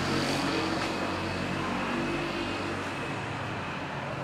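Motor vehicle engine humming steadily over street traffic noise, slowly getting quieter as it moves off.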